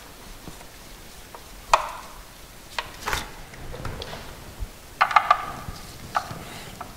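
Socket and long extension on a ratchet clinking against the oil drain bolt and steel skid plate: a handful of sharp metallic taps and knocks, some with a brief ring, with a quick cluster of them about five seconds in.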